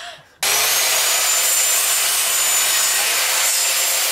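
Dexter Power compound miter saw switched on about half a second in, its motor and blade running steadily at full speed with a high whine.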